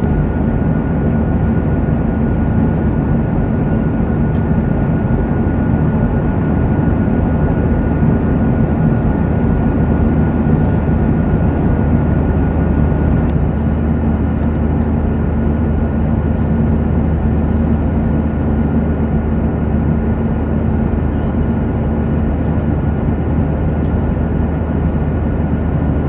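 Steady cabin noise of an airliner in cruise flight: the constant roar of engines and rushing air, with a low hum and a faint high whine over it.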